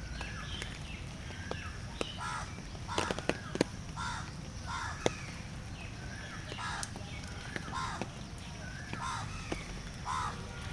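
Birds giving short, harsh caw-like calls again and again, with a few sharp clicks, over a steady low rumble.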